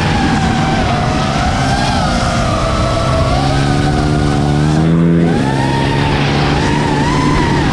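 Small-displacement scooter and pit-bike engines running on a kart track, several at once, with wavering pitches. One engine climbs in pitch and then drops off sharply about five seconds in.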